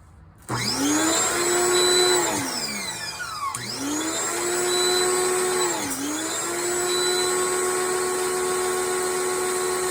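Pressure washer motor whining up to speed about half a second in, winding down about two and a half seconds in, then starting up again a second later and running steadily, with a brief dip near the middle.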